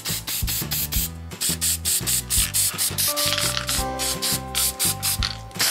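Spray can of gray primer hissing in short bursts, over background music with a bass line and a steady beat.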